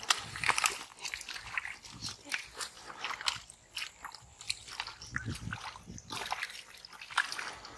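Hands groping through wet mud and shallow water, with irregular squelches, slaps and small splashes.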